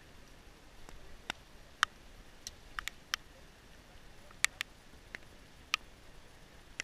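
Scattered sharp ticks, about a dozen at irregular intervals, over a faint steady hiss.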